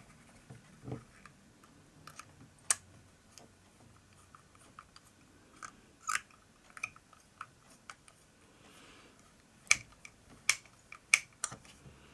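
Small screws being driven with a precision screwdriver into the neck parts of an Iron Man Mark III model kit: scattered light clicks and ticks of tool and parts, with a few sharper clicks in the second half.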